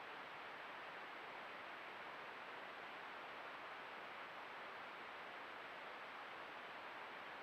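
Stream running high after heavy rain: a steady, unbroken rush of water.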